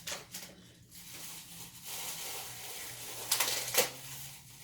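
Handling noises: light rustling with two sharp clacks in quick succession a little past three seconds in, over a faint steady hum.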